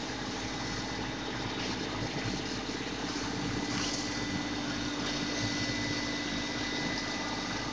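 Turntable pallet stretch wrapper running as it wraps a pallet: the turntable drive gives a steady mechanical hum with a low steady tone.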